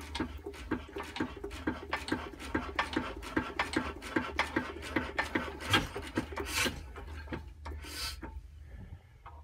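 Imperial Super Diesel single-cylinder hit-and-miss engine being turned over by hand at the flywheel, not yet firing: a fast, even clicking of about four clicks a second that stops about six and a half seconds in.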